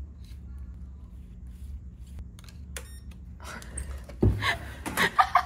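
Electronic keycard door lock beeping as the card is read, then a thump of the lever handle and door about four seconds in, followed by laughter.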